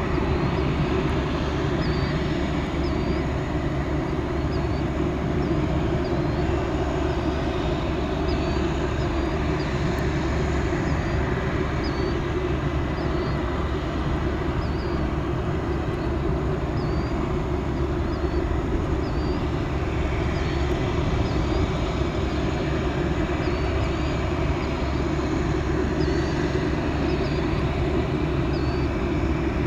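Steady jet noise from a parked Boeing 727-200 freighter with JT8D engines, an even rumble and hiss that holds level without spooling up or down. A faint high chirp repeats roughly every second over it.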